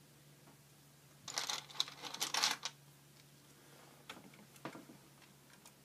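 Plastic LEGO bricks clicking and clattering under the hands as pieces are fitted onto the ship's hull: a quick flurry of clicks lasting about a second and a half, then two single clicks later on.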